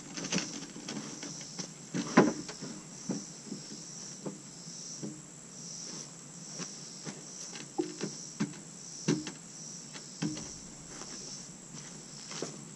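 Wooden knocks and clunks as wooden shelf rails and a ladder end are handled and fitted together, the loudest knock about two seconds in and a few more later. Insects chirp in the background in a high, pulsing rhythm.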